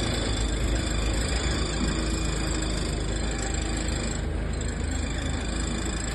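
Motor vehicle running steadily, a constant low rumble with broad noise over it and no distinct events.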